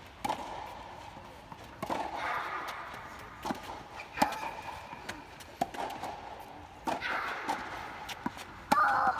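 Tennis rally: a tennis ball struck by children's rackets and bouncing on a clay court, heard as a series of sharp knocks about a second apart, the loudest near the end. Voices in the background.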